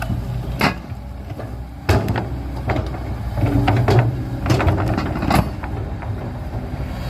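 Excavator engine running steadily, with several sharp metallic clanks and knocks scattered through it.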